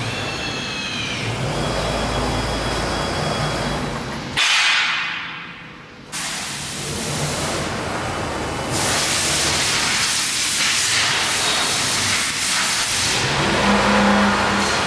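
3-axis CNC wood router running, a steady mechanical hiss with motor whines that glide in pitch as the gantry moves. A loud burst about four seconds in fades out over a second and a half, and the hiss grows louder about nine seconds in.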